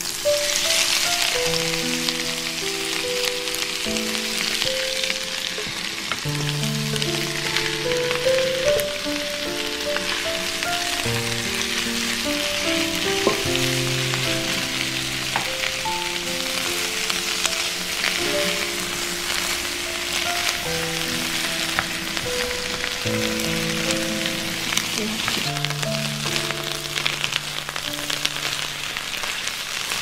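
Shredded bamboo shoots sizzling as they fry in hot oil in a frying pan; the sizzle starts suddenly as the shoots go into the pan and then runs on steadily. A gentle melody plays underneath.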